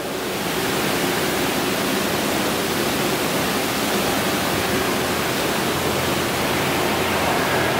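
Steady, even hiss of background noise with a faint low hum beneath it; no other sound.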